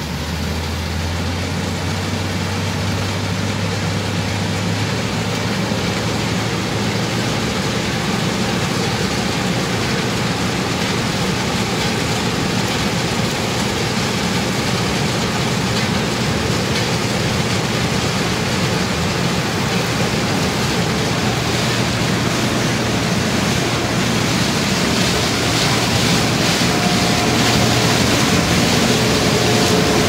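Case International combine harvester running steadily while harvesting maize: its diesel engine and threshing machinery make a continuous loud drone with a low hum, growing gradually louder toward the end.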